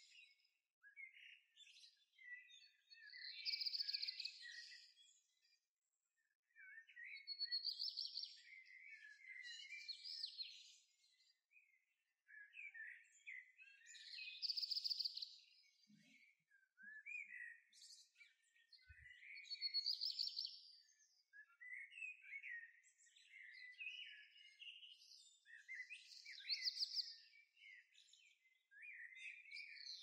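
Small songbirds chirping and singing: a short, high song phrase comes back every few seconds, with softer twittering and chips in between.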